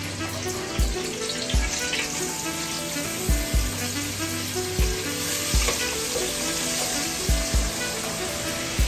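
Food sizzling as it fries in hot oil on a gas stove, with a wooden spoon stirring, under background music with a steady beat.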